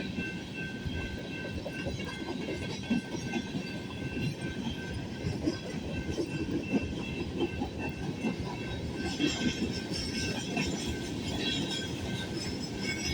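BNSF train rolling past: a steady rumble with wheels clacking over the rail joints, and a thin, faint, steady high tone above it. The clatter gets more high-pitched in the last few seconds.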